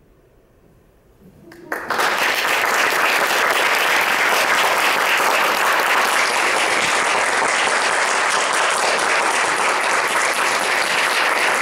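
Audience applause breaking out at the end of a piano piece: a second or so of near quiet, a few first claps, then full, steady clapping from about two seconds in.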